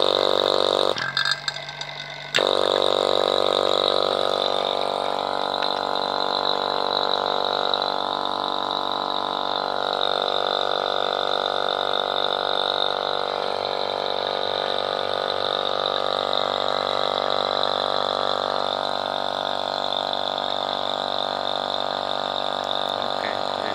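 DVM rotary-vane AC vacuum pump being test-run after an oil change. For about the first two seconds its sound comes and goes in short stretches, then it runs steadily as a hum with a high whine.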